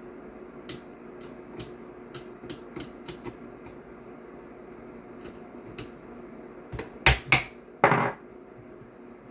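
Scattered light clicks and ticks of a screwdriver and small parts being handled while screws are taken out of an airsoft rifle's pistol grip. About seven seconds in, three loud sharp knocks follow as a tool or part is knocked and set down on the bench.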